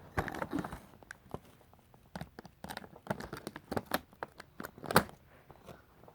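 Packaging being pulled open by hand, with sellotape being picked at and torn: irregular crinkling, small tearing sounds and clicks.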